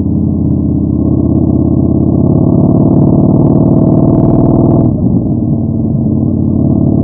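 Yamaha Bolt 950's air-cooled V-twin running through a Vance & Hines Twin Slash staggered exhaust on the move, with a steady, throbbing exhaust note. Just before five seconds in the note falls away as the throttle eases off.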